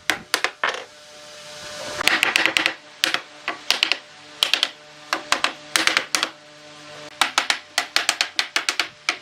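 A quick series of sharp knocks, in irregular clusters at first and then a fast, even run of about three to four a second near the end, over a steady low hum.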